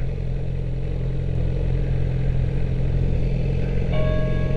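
Yamaha R6 sport bike's inline-four engine idling steadily at a stop, heard from the rider's seat. Near the end a brief, clear steady tone sounds for about a second.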